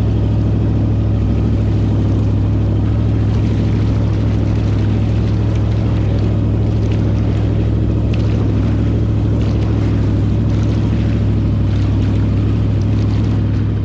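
Jet boat engine running steadily at a constant speed, with water and wind noise over it.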